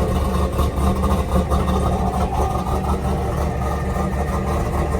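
Camaro's 6.2-litre LS3 V8, with a BTR stage 4 cam, idling steadily through a stock catback exhaust while still on its startup tune.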